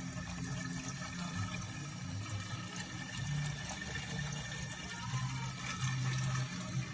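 Water running steadily through a tap-powered aquarium water changer as it siphons water out of the tank.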